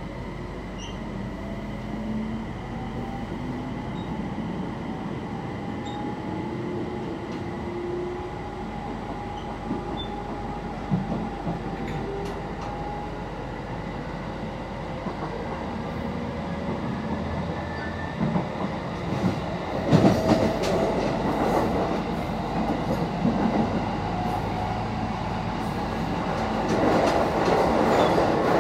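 Electric train pulling away and gathering speed, heard from inside the carriage. A motor whine rises steadily in pitch over roughly the first ten seconds, then the wheels click over rail joints and the running rumble grows louder toward the end.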